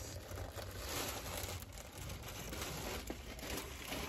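Plastic wrapping crinkling and rustling as an item is handled and unwrapped by hand.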